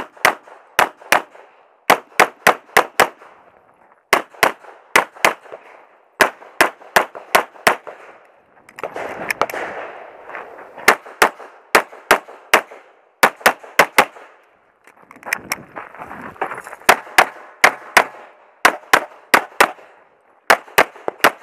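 Glock 35 .40 S&W pistol firing dozens of shots in quick strings of two to five, with short breaks between strings and a rushing noise in some of the gaps.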